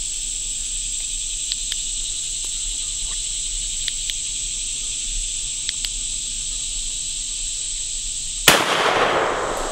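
A single gunshot about eight and a half seconds in, a sharp crack that trails off over about a second, over a steady high-pitched drone of insects.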